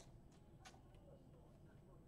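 Near silence: room tone, with two faint light clicks early on.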